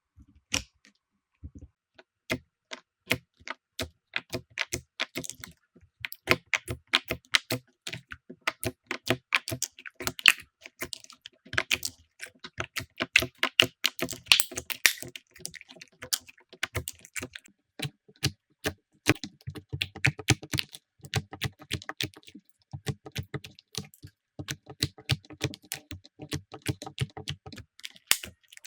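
Slime being squeezed and pressed by hand, giving a dense, irregular run of small crackling pops and clicks.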